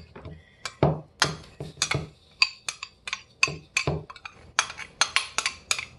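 Spoon and small ceramic bowl knocking and clinking against each other and the rim of a blender cup as chia seeds are tipped in: a run of short, sharp taps, about three to four a second, brighter from about four and a half seconds in.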